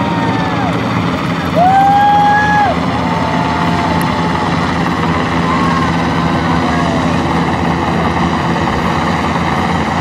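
Helicopter droning overhead in a steady low hum. Over it, people in a crowd give several drawn-out whooping shouts, the loudest one about two seconds in.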